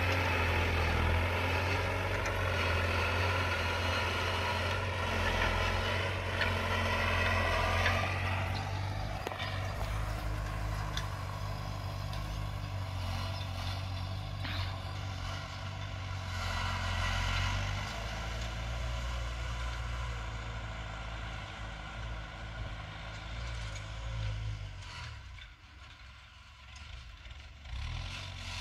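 New Holland TT4.75 tractor's diesel engine running steadily under load, pulling a tillage implement through the soil. Its note shifts about a third of the way in and grows fainter near the end.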